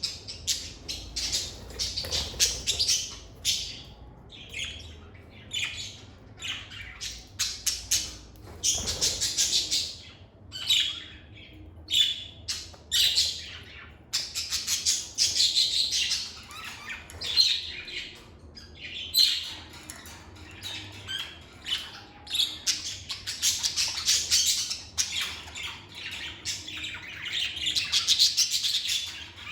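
Lovebirds chattering: high-pitched chirps and squawks come in quick, overlapping runs with only short pauses between them.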